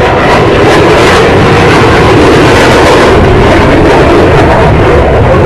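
Blue Angels F/A-18 Hornet jets flying past the crowd, their jet engines making a loud, steady noise.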